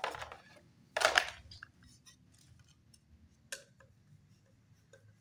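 Flat-pack particleboard desk parts being handled: two brief scuffs in the first second and a half, then scattered light clicks and taps, one sharper about three and a half seconds in.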